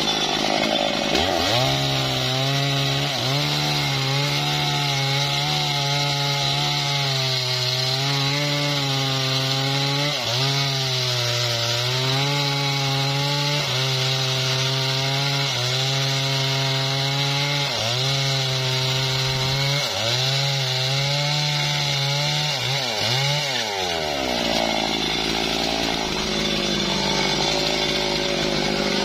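Stihl chainsaw cutting through a mahogany log. The engine pulls down under load into a lower, wavering note as the chain bites. Near the end the pitch rises sharply and the saw runs at high revs.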